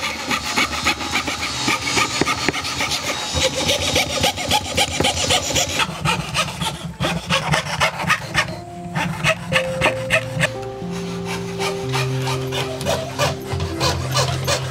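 Bow-framed hand fret saw with a blade about 0.5 mm thick cutting thin wood sheets for inlay, in quick short rasping strokes. Background music with held notes comes in about halfway through.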